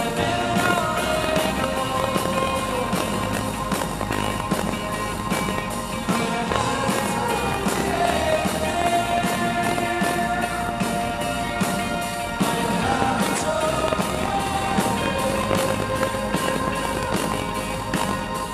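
Live rock band playing a song: a drum kit, electric guitar and keyboards, with a singer's voice carrying the melody, heard from the audience in the hall.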